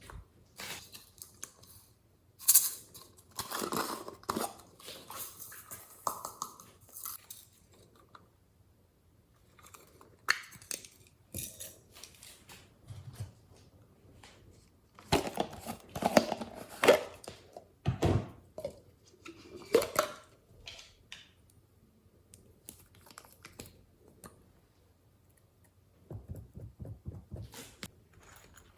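Glossy slime being squished, stretched and poked by hand, giving sticky clicks and crackles in irregular bursts with quiet pauses between them. The busiest stretches are a few seconds in and again around the middle.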